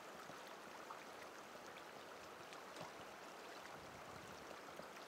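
Faint, steady rush of river water.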